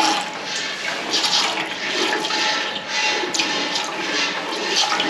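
Milk squirting from a cow's teats into a bucket during hand milking, in repeated hissing spurts about once a second.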